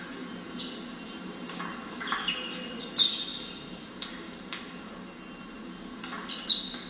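Table tennis rally: the ball clicking sharply off bats and table in an irregular run of hits, mixed with brief high squeaks of sports shoes on the hall floor. The loudest click-and-squeak comes about three seconds in, another sharp hit near the end.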